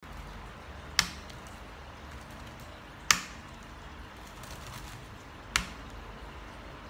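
Laptop keyboard being typed on softly, with three hard, sharp key strikes about two seconds apart.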